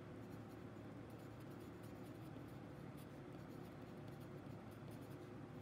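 Faint scratching of a yellow wooden pencil writing on a paper worksheet, in short uneven strokes, over a low steady hum.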